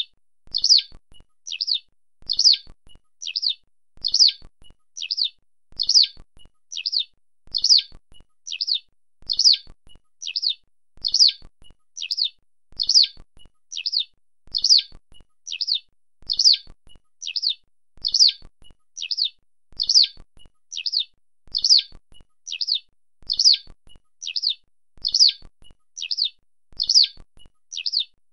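Eurasian skylark (Alauda arvensis) calling: short, high chirrups repeated at an even pace, a little more than one a second, alternately louder and softer.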